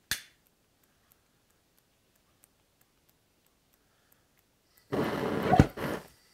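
Homemade gas foundry burner being lit: a sharp click at the start, then about five seconds in a second-long rush of flame with a pop in the middle as the burner catches briefly. The burner, with its new flared sleeve, is not staying lit.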